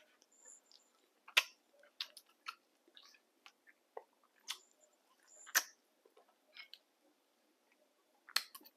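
A person chewing crab: scattered short, sharp mouth clicks and crunches, about one every second or so, with quiet between them.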